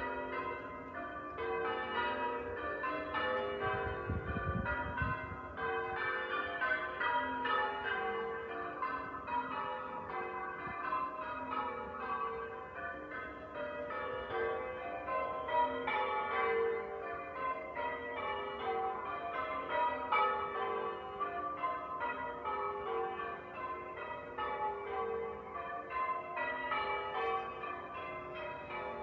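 Church bells ringing, a quick, even succession of strikes on bells of different pitch following one another without a break.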